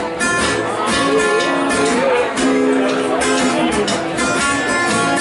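Live acoustic guitar strummed along with a drum kit, cymbals keeping a steady beat, playing a song.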